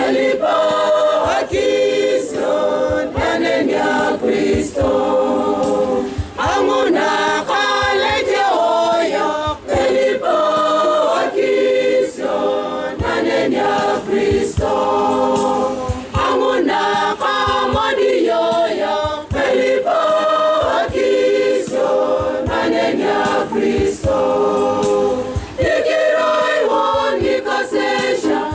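Church choir singing a hymn in several voices, in continuous phrases of held notes.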